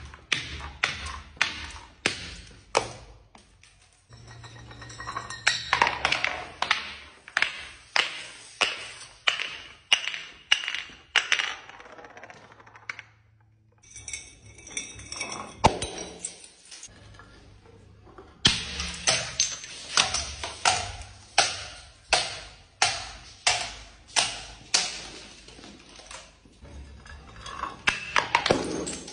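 Glass jars and bottles tumbling down granite stairs, clinking and clacking as they drop onto each step in runs of hits about two a second, with a quieter stretch midway.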